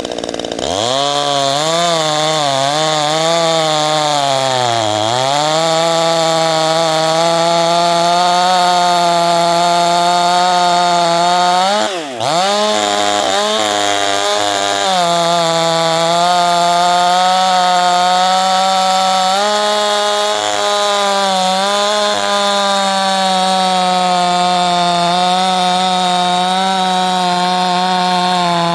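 Modified 65cc two-stroke chainsaw running hard. It is revved up and down several times at first, drops off sharply for a moment about twelve seconds in, then is held at high revs, fairly steady, for the rest.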